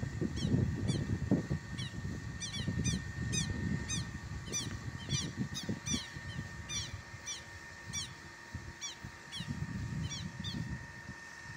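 Southern lapwing (quero-quero) calling over and over: a fast run of short, high calls, each sliding down in pitch, about two a second, thinning out near the end, over a low rumbling noise.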